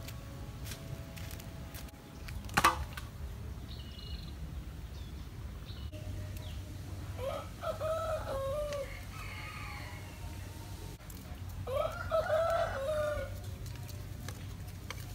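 A rooster crowing twice, each crow about a second and a half long and a few seconds apart. A single sharp click sounds about two and a half seconds in.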